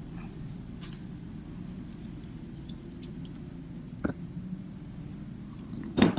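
A sharp metallic clink with a brief ringing about a second in, then a couple of lighter knocks, as metal tools and suspension bolts are handled, over a steady low hum.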